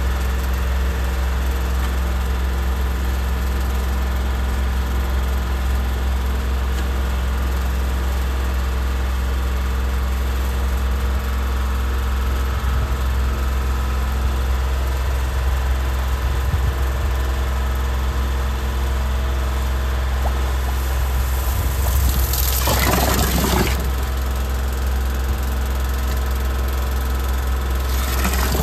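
Engine idling steadily with a constant low hum. About 22 seconds in there is a short burst of hiss, and another starts near the end as a water hose sprays into the flooded drain chamber.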